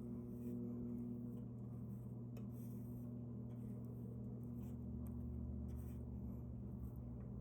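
Wood lathe running with a low, steady hum, with faint, light scratching strokes over it.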